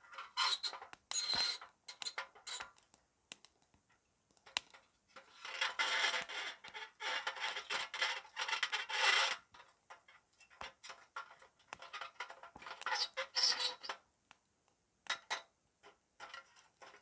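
Small sticks of firewood being handled and fed into a small metal hobo stove: irregular clicks, clatters and scrapes of wood on wood and metal, coming in clusters of a second or two.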